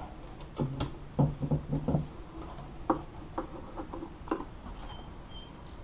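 Scattered clicks, knocks and rustles of hands working a sewing machine and pulling vinyl out from under it, then a scissors snip cutting the thread about four seconds in.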